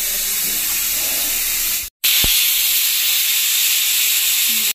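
Pressure cooker on a gas stove hissing steadily as it lets off steam. The sound cuts out completely for a moment about two seconds in, then goes on.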